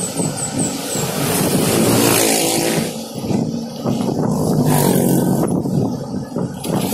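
Small motorcycle engine running while riding along, its engine note shifting with the throttle about two seconds in.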